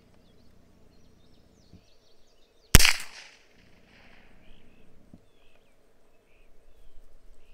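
A single shot about three seconds in from a Heritage Barkeep .22 revolver with a 2.6-inch barrel firing an Aguila Super Colibri, a low-velocity .22LR round: one short sharp crack with a brief ringing tail.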